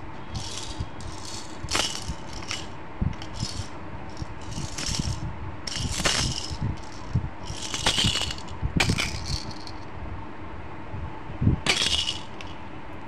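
A baby's plastic toy rattle shaken in short, irregular bursts, about ten times, with a few dull knocks in between.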